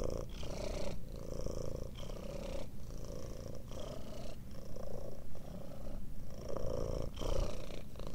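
Domestic cat purring steadily, the purr pausing briefly about once a second.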